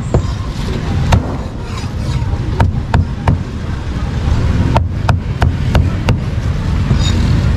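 A heavy steel cleaver chopping cooked pork on a thick round chopping block: about nine sharp chops, spaced unevenly with several coming in quick runs, over a steady low background rumble.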